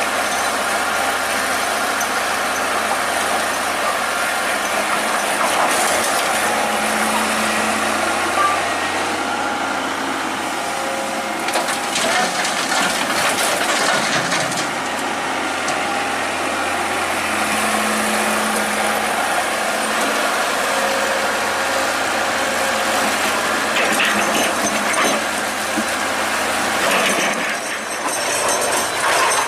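Excavator's diesel engine running steadily while it works, with bursts of clatter about twelve seconds in and again near twenty-five seconds.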